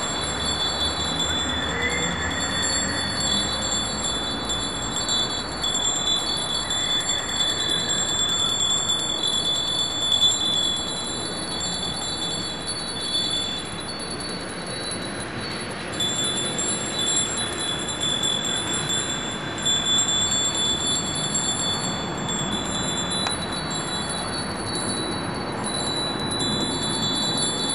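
A small hand bell rung continuously, its high ringing kept up with only brief dips, over the steady noise of city street traffic.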